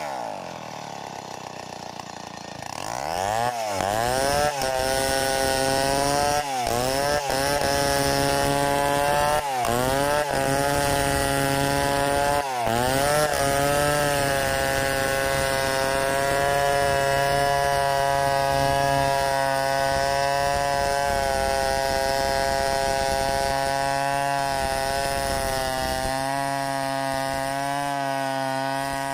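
Stihl 070 two-stroke chainsaw ripping lengthwise through a log. The engine drops to a low, quieter speed at the start and revs back up about three seconds in. Its pitch dips and recovers sharply several times over the next ten seconds, then it runs steadily at high speed in the cut.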